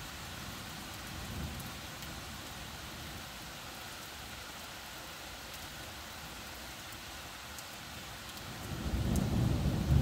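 Steady rain during a thunderstorm, with a low rumble of thunder building near the end.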